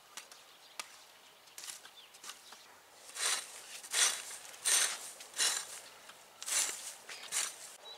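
Garden hoe chopping and scraping through weedy soil: about six strokes in a steady rhythm, one roughly every three-quarters of a second, starting about three seconds in, with only faint light ticks before that.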